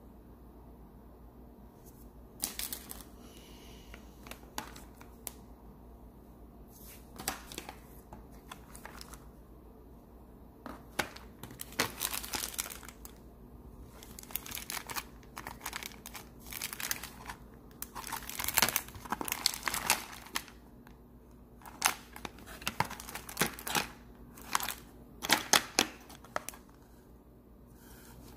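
Small plastic zip-lock bags of robot-kit parts crinkling and rustling as they are handled, in irregular bursts that come more often in the second half.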